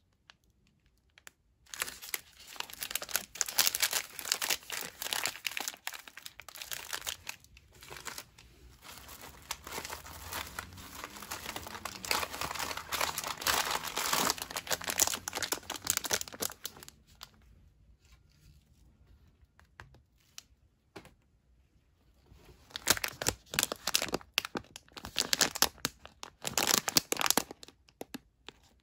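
Plastic food packaging crinkling as it is handled: snack wrappers and the meal pack's clear plastic bag. The crinkling goes on for about fifteen seconds, stops for a few seconds, then returns loudly near the end.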